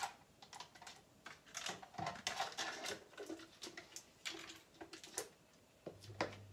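A spoon scraping and tapping in a plastic yogurt tub, and small jars clinking on a countertop: a scattered run of light clicks and scrapes. A low steady hum starts near the end.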